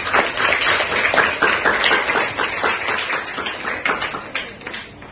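A room full of students clapping together, dense applause that thins out and dies away near the end.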